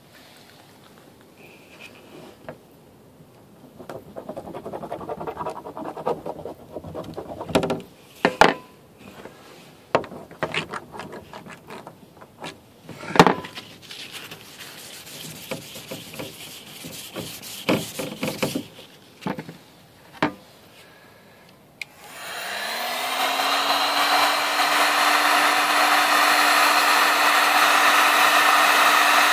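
Clear plastic sheet being scuffed with a scouring pad: irregular rubbing and scraping with sharp clicks and taps. About 22 seconds in, a heat gun is switched on; its fan motor winds up with a rising hum and then blows steadily and loudly.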